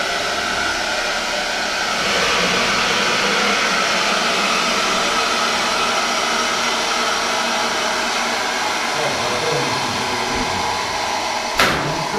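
Water rushing through the fire-main pipework of a sprinkler pump station after a valve is opened: a steady hiss that grows louder about two seconds in, as the line fills and pressure builds. A single sharp knock comes near the end.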